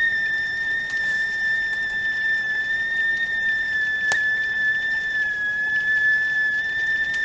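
Stovetop tea kettle whistling at the boil: one steady, high-pitched tone with steam hissing underneath.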